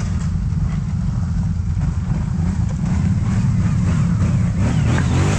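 ATV engine running steadily at low speed.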